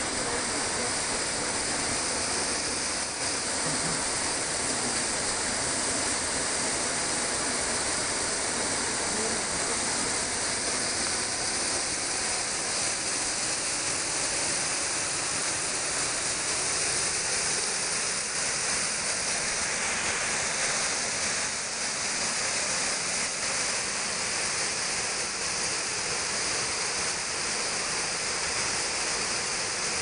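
A small waterfall pouring down rock ledges into a shallow pool: a steady rush of falling and splashing water.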